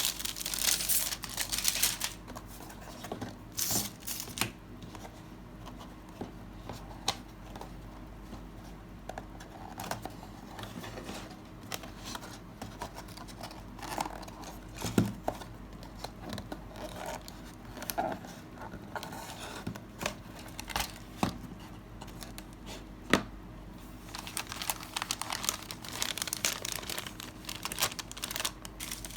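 Plastic model kit packaging being handled: plastic wrapping crinkling and tearing in bursts near the start and near the end, with scattered light clicks and taps in between.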